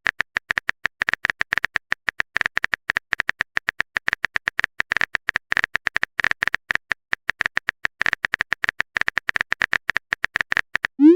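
Phone keyboard typing sound effect: a fast, irregular run of short clicks, with a short rising swoop at the very end.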